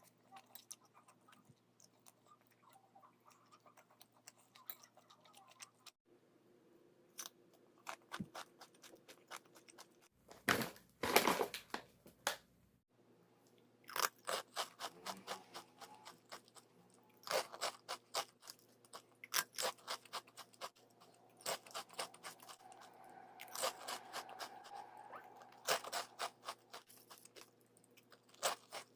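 Crunchy snacks being bitten and chewed: irregular runs of crisp crunches, with a louder burst of noise about ten to thirteen seconds in.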